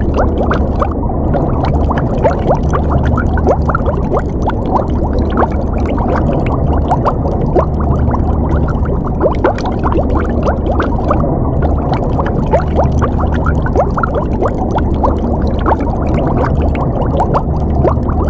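Underwater ambience: continuous bubbling and gurgling, with many small bubbles giving quick rising blips over a steady low rumble.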